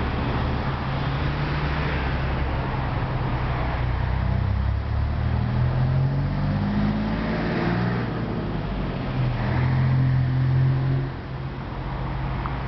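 Road traffic: motor vehicles passing, their low engine hum rising and falling over a steady hiss, loudest a little past two-thirds through, then dropping away suddenly.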